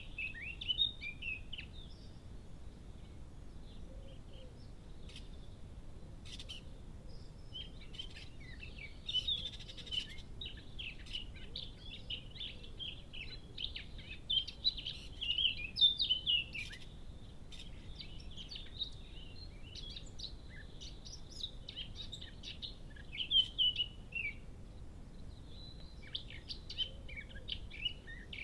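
Eurasian blackcap singing: fast, varied warbling phrases in bursts with short pauses, busiest in the middle of the stretch.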